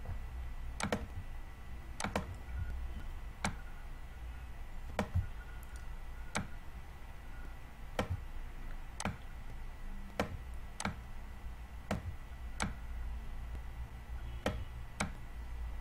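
Sharp, irregular clicks, roughly one a second, from drawing lines and numbers on a computer whiteboard.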